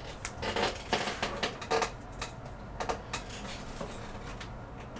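A stack of trading cards being gathered and squared up on a table mat: a run of clicks, taps and scuffs over the first three seconds or so, then it dies away.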